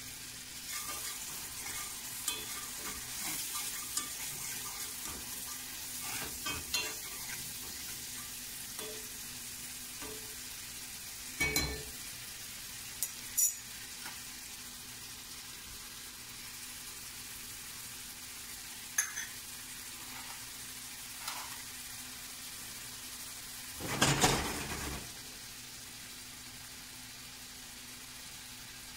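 Diced bacon sizzling steadily in a cast-iron skillet. A few sharp metallic clinks from the small steel prep cups and utensils cut in, with a louder clatter lasting about a second near the end.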